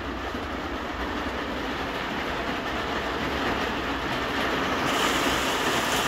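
Steady rain falling on a small greenhouse's roof and panes, an even hiss over a low rumble that grows a little louder and brighter near the end.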